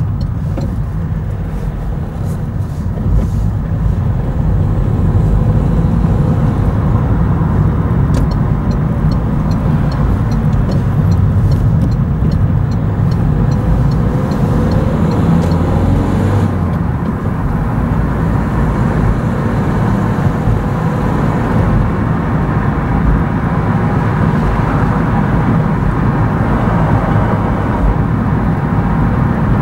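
Road and engine noise inside a moving car: a steady low rumble of tyres and engine, with a light regular ticking for several seconds in the middle.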